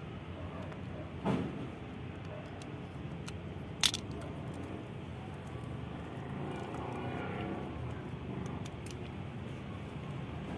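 Hand-tool work on a small-engine carburettor: a brief scrape a little over a second in, then a sharp metal click about four seconds in, with a few faint ticks, over a steady low background rumble.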